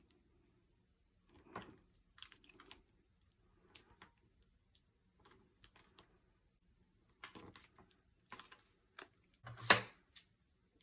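Scattered small clicks, taps and soft paper rustles of hands laying foam adhesive strips around a paper card piece, with one louder tap near the end.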